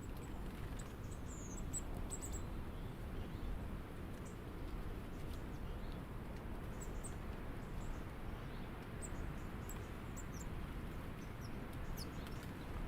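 Small birds giving scattered short, high chirps, a few sliding downward, over a steady low outdoor rumble.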